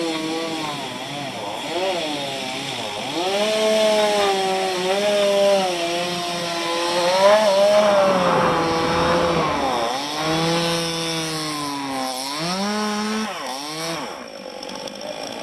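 Two-stroke chainsaw carving into a dead palm trunk, its engine note rising and falling again and again as it revs and bogs under load. It eases off about fourteen seconds in.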